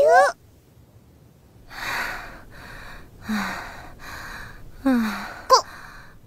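A woman sick with a cold breathing heavily, three laboured breaths about a second and a half apart, the later two ending in a short low falling groan. A high squeaky voice ends just at the start.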